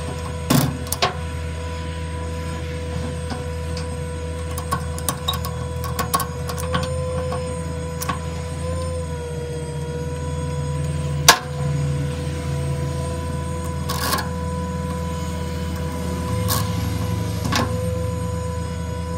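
Flatbed tow truck running steadily with a low hum and a constant whine, while tie-down straps and hooks clatter with scattered clicks and knocks as the motorcycle is secured on the bed; one sharp knock about 11 seconds in is the loudest.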